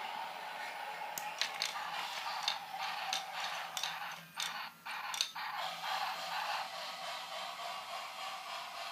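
Wooden toy train pieces clicking and clacking against each other and the wooden track: a scattered run of sharp clicks in the first half, over a steady hiss.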